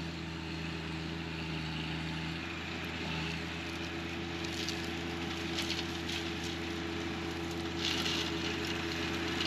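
John Deere 1025R compact tractor's three-cylinder diesel running steadily under load, driving a PTO-powered offset flail mower that is cutting down grass and blackberry vines; a steady engine drone.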